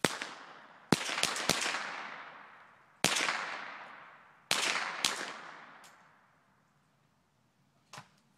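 A series of gunshots, each a sharp crack followed by a long echo that fades over a second or two. There is one at the start, a quick group of three about a second in, one about three seconds in, two more between four and a half and five seconds, and a last short, sharp crack near the end.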